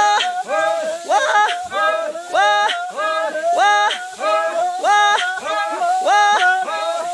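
Men's voices chanting a rhythmic work chant while threshing paddy: short calls that glide upward in pitch, about two a second, with a louder call about every second beat.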